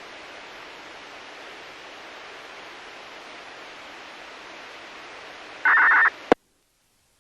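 Steady radio hiss from a disaster-prevention wireless receiver left open after its music-box chime. About five and a half seconds in, a short loud burst of noise and a sharp click come as the broadcast carrier drops, and the receiver cuts off suddenly into silence.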